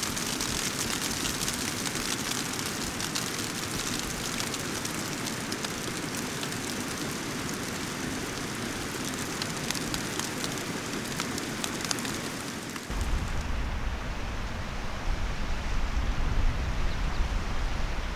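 Sleet hitting the fabric of a Zpacks Free Duo tent, heard from inside as a steady hiss full of fine ticks. About two-thirds of the way through it gives way abruptly to wind buffeting the microphone, a low rumble.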